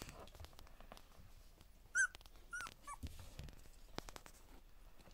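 Two-week-old border collie puppies squeaking: three short, high whimpering squeaks about two seconds in, the first one loudest.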